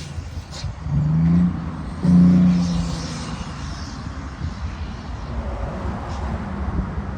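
Volvo FH Euro 6 diesel truck rumbling at idle, with two short throttle blips, about a second in and about two seconds in, the second one louder, before it settles back to idle.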